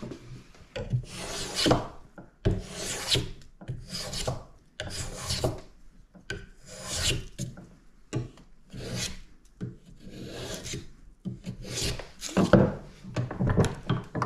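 Small hand plane cutting along a violin bass bar blank in repeated strokes, about one a second, while it is thicknessed down.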